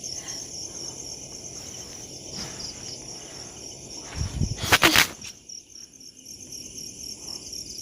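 Crickets chirping steadily in a fast pulsing trill. About four seconds in there is a brief low thud followed by a short loud burst of rustling.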